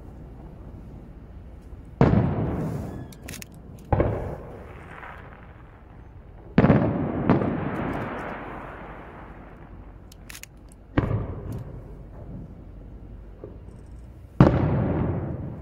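Aerial firework shells bursting about half a kilometre away: five deep booms a few seconds apart, each trailing off in a long rolling echo, with faint crackles in between.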